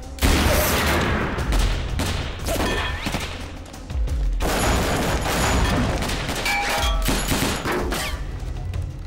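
Rapid gunfire in two long bursts, the second starting about four seconds in, with rounds striking and ricocheting off metal.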